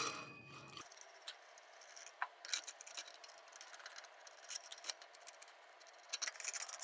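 Faint, scattered metallic clicks and light rattles as the accessory tray is handled and fitted onto a steel tripod's legs.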